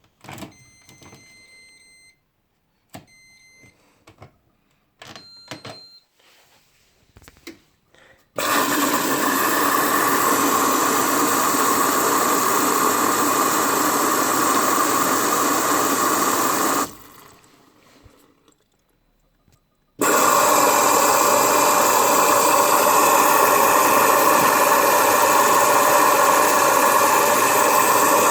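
Hoover Dynamic washing machine's control panel beeping several times among small clicks as it is set going. About eight seconds in, water starts rushing in through the inlet valve and dispenser drawer with a loud steady hiss as the machine fills; it stops for about three seconds, then starts again.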